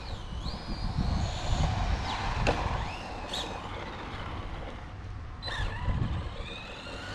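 Hobao EPX RC truck's 5400kv brushless electric motor whining as it is driven, its pitch rising and falling several times with the throttle, with a few sharp ticks in the middle.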